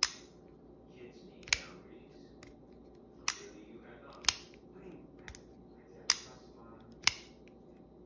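Leatherman Arc multitool's MagnaCut knife blade flicked open and closed again and again, each flick a sharp click. There are six loud clicks about one to two seconds apart, with quieter handling sounds between them.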